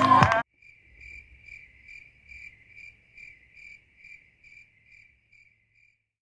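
Music cuts off half a second in, leaving a cricket chirping on its own, about two even chirps a second, fading away near the end.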